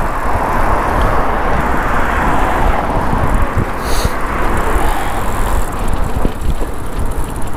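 Road traffic on a busy main road heard from a moving bicycle: tyre and engine noise swells and fades as vehicles pass, over a steady low rumble, with one brief sharp click about four seconds in.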